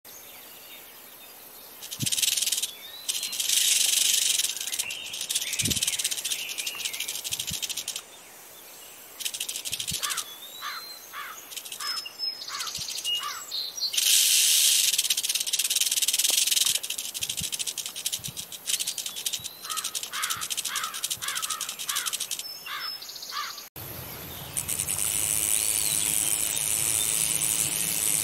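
Rattlesnake shaking its raised tail rattle: a dry, high-pitched buzz in bursts of one to three seconds, with short bird chirps between them.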